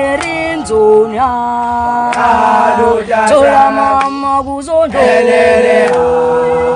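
Group of voices singing a Xhosa gwijo chant a cappella, in long held notes that move in pitch together.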